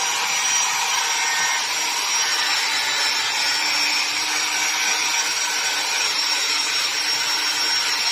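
Electric power tool running steadily, a constant high whine over a rasping hiss.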